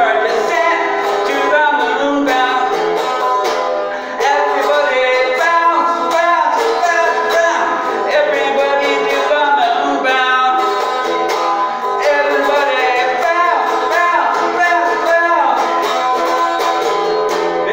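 Electric guitar playing a rock-and-roll song, with a man singing along.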